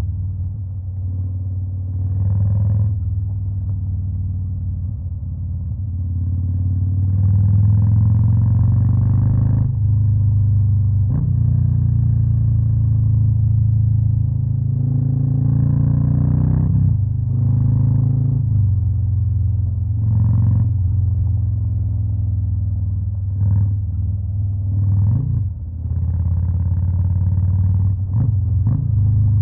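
Stage 2-tuned Harley-Davidson Fat Boy V-twin running at a steady idle, blipped up and back down again and again: short revs about every two to three seconds, with a longer rev around seven to nine seconds in.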